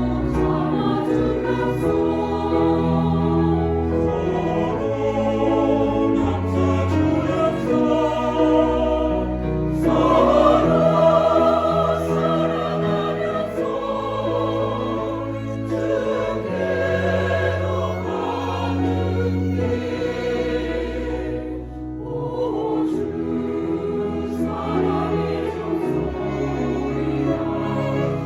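Church choir singing a slow anthem in sustained, vibrato-laden chords over low held bass notes of an accompaniment, swelling to its loudest about ten seconds in.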